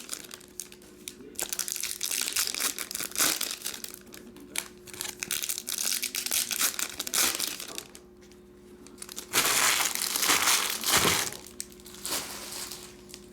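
Trading-card packaging handled by hand: foil pack wrappers and box packaging crinkling and being torn open, with a louder stretch of tearing and crinkling about nine to eleven seconds in.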